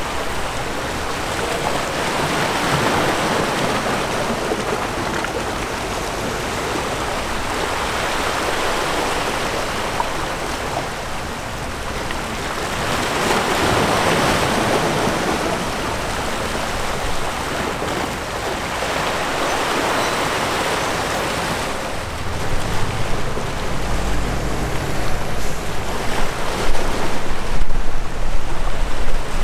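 Waves washing in, a hiss of water that swells and fades every five or six seconds. About three-quarters of the way through, wind starts buffeting the microphone in uneven low gusts.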